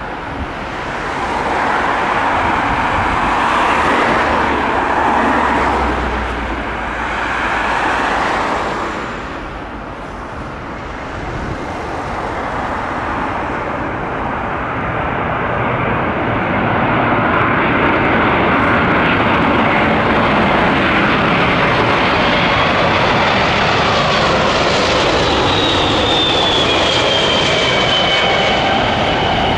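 Jet noise from the four turbofan engines of a British Airways Boeing 747-400 flying low on landing approach. A broad rushing sound swells, eases briefly, then holds loud and steady, with a high whine falling in pitch near the end as the jet passes.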